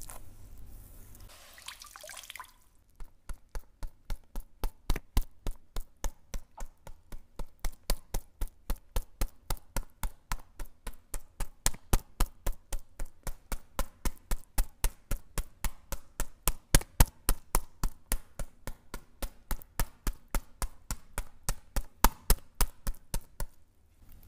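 Hands rubbing over oiled skin for a couple of seconds, then a long run of quick, even pats of a soft pad on the bare back, about four a second, stopping shortly before the end.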